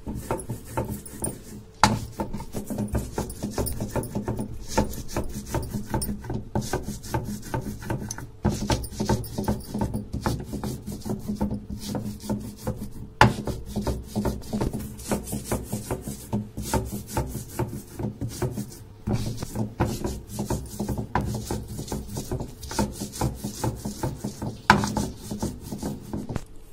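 Sil-batta stone roller grinding coriander, green chilli, garlic and cumin on the flat grinding stone: a steady scraping rasp of quick back-and-forth strokes, with a few sharp knocks.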